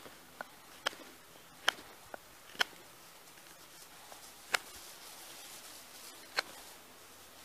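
Folding knife blade carving into a wooden stick to shape a tent peg: about seven sharp snicks at irregular intervals, one per cut, with a faint hiss in the middle.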